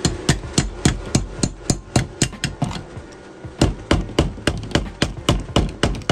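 Steady hammering, about four blows a second, with a pause of about a second near the middle.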